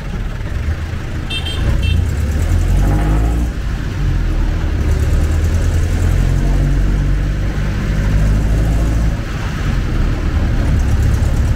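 Jeepney's diesel engine running, heard from inside the open passenger cabin, its pitch rising for a moment about three seconds in as it pulls away, with street traffic around it. Two short high beeps sound about a second and a half in.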